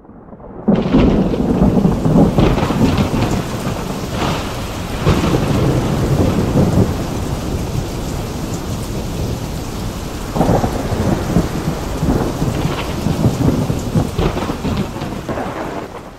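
Thunderstorm: steady heavy rain with thunder rolling in several times, beginning with a sudden loud crack about a second in and fading out at the end.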